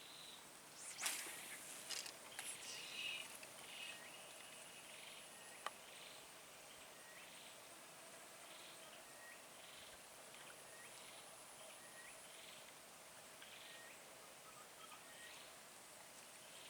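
Faint outdoor ambience: a short, high animal call repeating about once a second over a thin, steady, high-pitched insect drone. A few soft clicks and rustles come in the first few seconds, and one sharp click comes near the middle.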